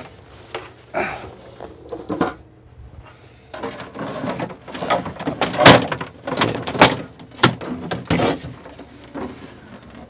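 Plastic infant bed tray of an Isolette C2000 infant incubator being slid out and lifted away: a run of knocks, clatters and scrapes, the loudest knock about halfway through.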